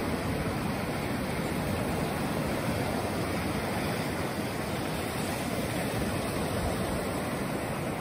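Small waves breaking and washing up over the sand: a steady rush of surf.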